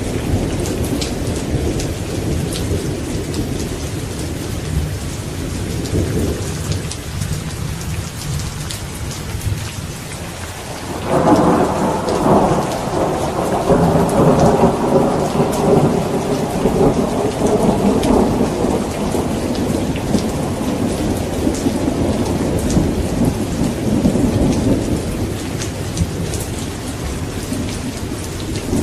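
Thunderstorm: steady heavy rain with rolling thunder. A loud thunderclap breaks out suddenly about a third of the way in and rumbles for several seconds, then fades slowly under the rain.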